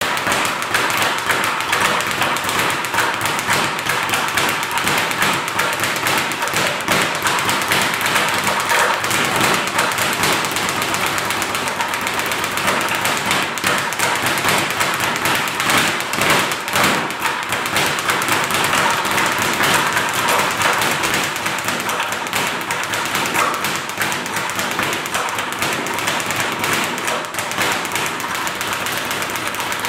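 Speed bag punched continuously: a fast, unbroken rattle of thuds as the fists and bag strike the wooden rebound board.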